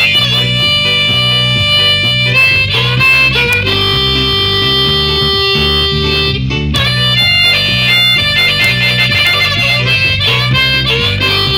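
Harmonica playing a melody of long held notes over a steady guitar and bass accompaniment.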